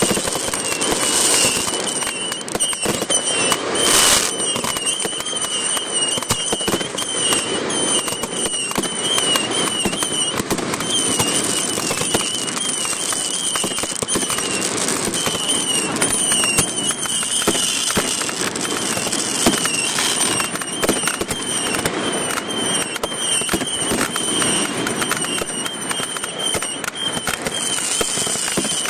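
Aerial fireworks display: a continuous run of shell bursts and crackling stars, with a louder bang about four seconds in.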